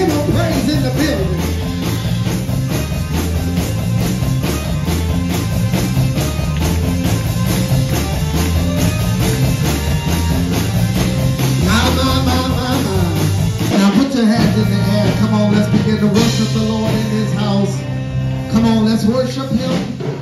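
Church worship band playing a song with a steady drum beat, bass and guitar, with singing.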